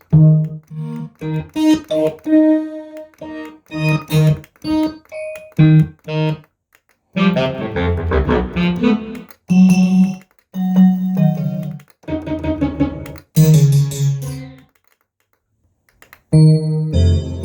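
Korg X3 synthesizer playing its factory sounds: short repeated chord stabs, then longer, fuller phrases in changing tones. It breaks off briefly near the end before a new sustained sound comes in.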